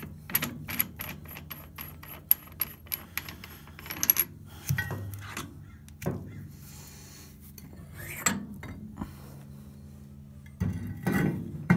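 Metal clinking and clattering as the arbor nut, spacers and cone are worked off a brake lathe's arbor shaft: a quick run of small clicks for about the first four seconds, then a few heavier knocks as the cup and the brake rotor are slid off.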